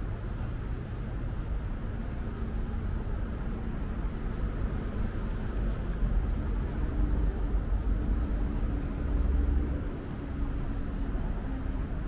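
City street ambience: a steady low rumble of road traffic, heaviest in the middle of the stretch.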